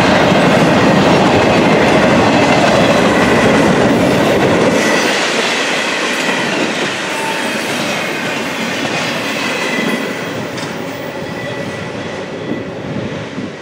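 Double-stack intermodal freight cars rolling past on steel wheels over the rails, a steady loud running noise with a faint high squeal. It drops about a third of the way in and fades further near the end as the rear of the train passes and moves off.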